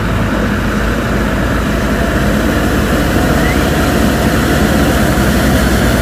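An SUV fording a shallow river crossing on a submerged concrete slab: its engine running under a steady rush and splash of water, growing slightly louder as it approaches.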